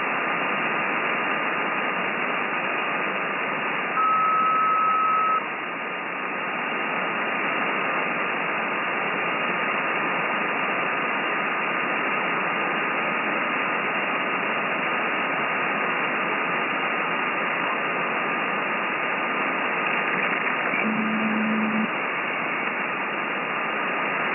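FLEX-1500 software-defined transceiver on receive: steady shortwave band-noise hiss through a narrow voice filter, with a faint constant whistle. A louder, higher beep comes in about four seconds in and lasts about a second and a half, and a short low tone sounds near the end.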